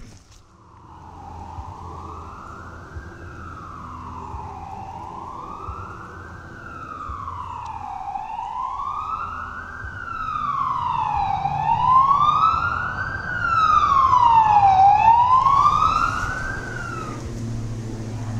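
Emergency-vehicle siren in a slow wail, its pitch rising and falling about every three seconds. It grows louder as it comes closer and cuts off near the end.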